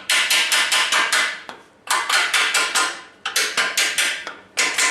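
Hammer tapping steel in quick runs of about seven blows a second, four runs with short pauses between them. It is knocking the post leg vise's wedge and yoke loose.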